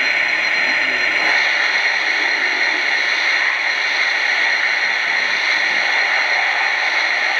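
Steady hiss of simulated steam from the onboard sound system of a Lionel Vision GS-series O gauge model steam locomotive standing at idle.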